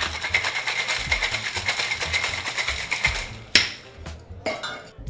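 Ice rattling fast and hard inside a metal cocktail shaker as it is shaken. The rattle stops a little over three seconds in with one sharp knock, the loudest moment. Background music with a low beat runs under it.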